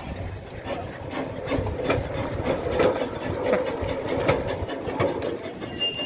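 Steam locomotive moving off slowly after being turned, with a low rumble and irregular mechanical clanks and clicks.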